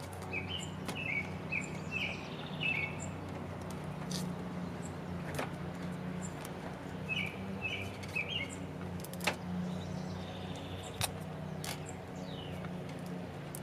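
A small bird chirping in quick runs, five short chirps and then three more a few seconds later, over a steady low hum. Now and then there are sharp clicks from handling the wire and electrical tape.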